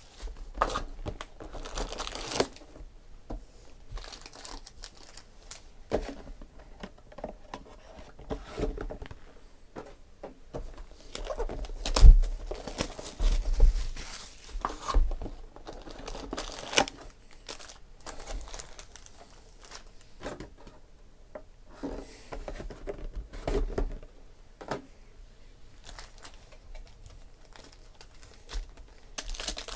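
Foil card packs and plastic box wrap crinkling and tearing as they are handled and stacked, in many irregular short rustles with occasional knocks on the table, the loudest a sharp knock about twelve seconds in.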